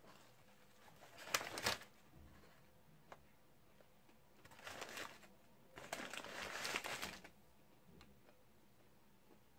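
Close-up eating of a fried chicken sandwich: chewing and the rustle of its paper wrapper as it is handled, in short bursts, the sharpest about a second and a half in and the longest around six to seven seconds, with faint mouth clicks between.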